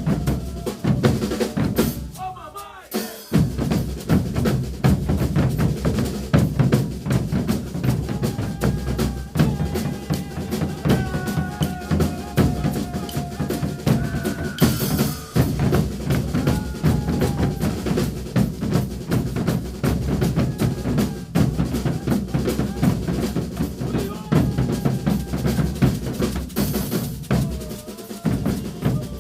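Percussion ensemble playing a caboclinho rhythm on drums, with snare and bass drum in a fast, steady beat. It eases off briefly about three seconds in, then comes back in full.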